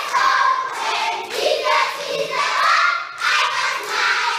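A group of young children singing together and clapping their hands.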